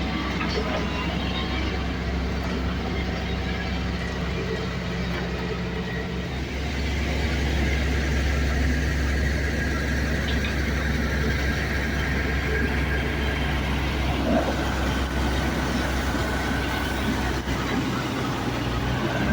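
Heavy construction vehicle's engine running steadily with a low drone, growing a little louder about six or seven seconds in.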